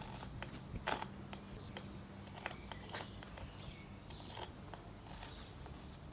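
Loose old bricks knocking and clicking against one another as they are picked up and handled: irregular sharp knocks, one every half second to second. Small birds chirp faintly in the background.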